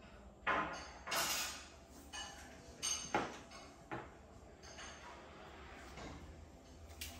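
Saddle and seatpost of a titanium mountain bike being handled and slid: a handful of short scrapes, clicks and knocks in the first half, two of them close together.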